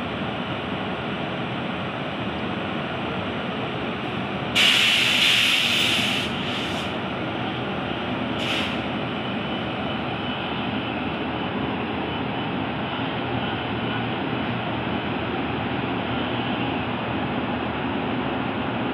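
WAP-7 electric locomotive running steadily as it moves slowly. About four and a half seconds in comes a loud burst of compressed-air hiss lasting over a second, followed by two shorter hisses.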